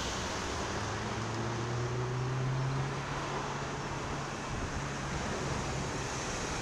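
Wind rushing over a cyclist's camera microphone with road traffic, and the low hum of a car engine close alongside, loudest about two to three seconds in.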